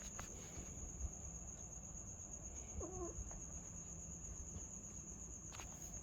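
A faint, steady high-pitched insect trill, cricket-like, over a low rumble, with one short faint call about three seconds in.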